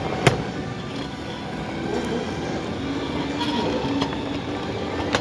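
Model train running on the layout's track: a steady hum and rolling noise, with a sharp click about a quarter second in and another near the end.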